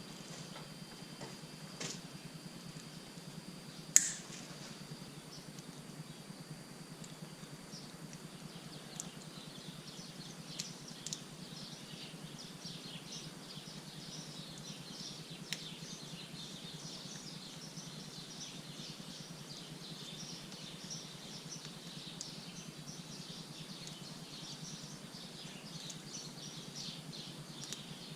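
Many small birds chirping rapidly and continuously in the background from about ten seconds in, over a steady low hum. One sharp click about four seconds in, with a few lighter clicks.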